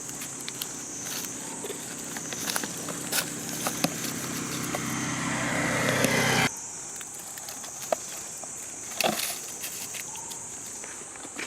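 A motor vehicle's engine running and growing steadily louder for about six seconds, then cutting off abruptly. Scattered light ticks and rustles can be heard, and a steady high-pitched drone continues underneath.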